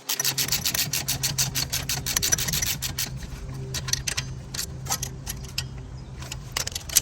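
Hand ratchet clicking rapidly as a thread-locked brake caliper bolt is run in, the clicks thinning out about halfway through.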